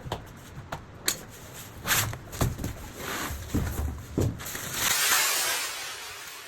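Irregular knocks and clatters from handling and fitting a wooden flush door, then a short hiss about five seconds in.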